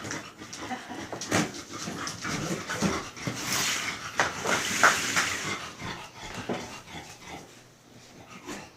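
A dog whining and panting, among scattered knocks and rustling, with a louder stretch of rustling in the middle.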